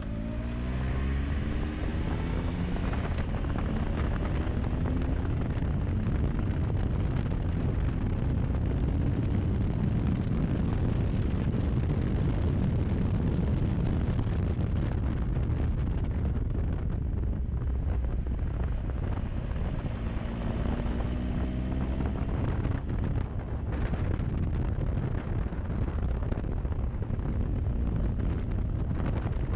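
Onboard sound of a 1200 cc motorcycle being ridden, its engine pitch rising as it accelerates shortly after the start and again about two-thirds of the way through, over steady wind rush on the microphone.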